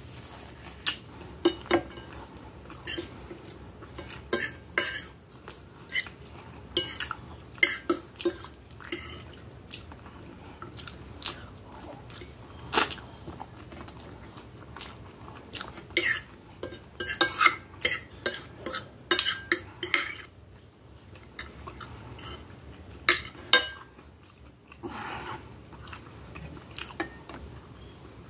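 Metal fork and spoon clinking and scraping against a glass plate as spaghetti is twirled and eaten, in many short irregular clicks, with chewing between them.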